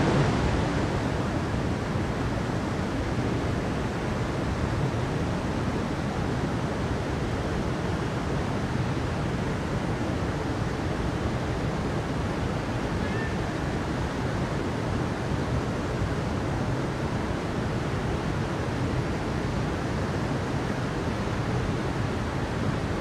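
A forest stream running over rocks: a steady, even rush of water.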